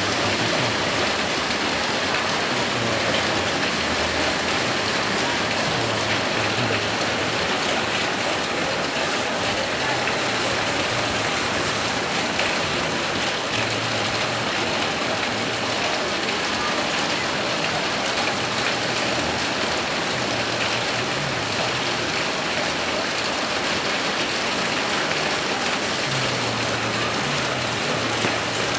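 Heavy rain pouring steadily during a rainstorm: a dense, even hiss of rain that does not let up.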